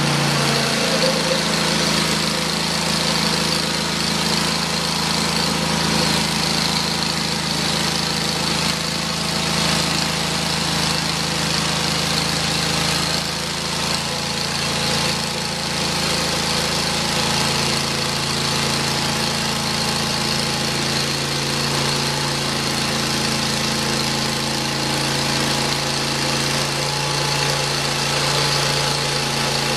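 Hud-Son Oscar 36 bandsaw mill running steadily as its saw head travels along a soft maple log, cutting a board.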